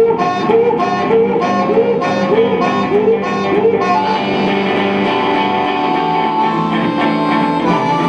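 Live blues played on a strummed semi-hollow electric guitar and a harmonica cupped to a microphone. A repeating rhythmic riff with bent notes gives way to longer held notes about four seconds in.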